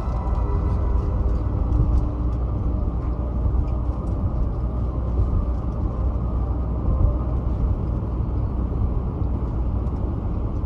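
Cabin noise of a car driving on a highway: a steady low rumble of engine, tyres and wind.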